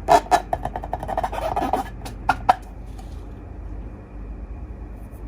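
Slime being handled and squished, with sticky clicks and crackling pops. After about two and a half seconds they stop, leaving a faint steady hiss.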